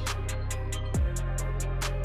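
Background music with a steady electronic beat: a deep held bass, a kick drum hit that drops in pitch about a second in, and quick, evenly spaced hi-hat ticks.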